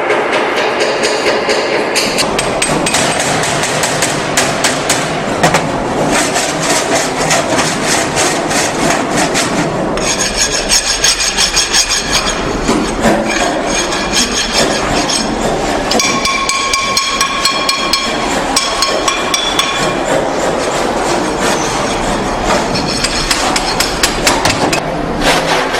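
Rapid hammer blows on metal with scraping and filing, and ringing metal tones in the middle stretch: heavy metalworking on a steam locomotive under repair.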